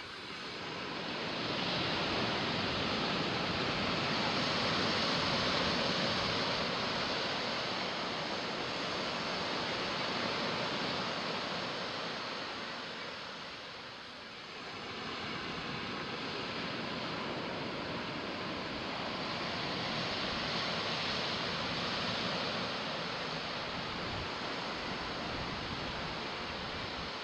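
Ocean surf: a steady wash of breaking waves that swells, eases off about halfway through, then builds again.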